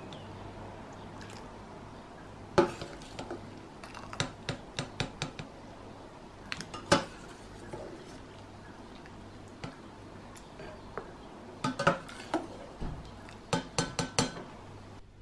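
Slotted spoon clinking and knocking against a stainless steel saucepan and a glass bowl as boiled garlic is scooped out and moved into cold water, in several clusters of sharp clinks a few seconds apart.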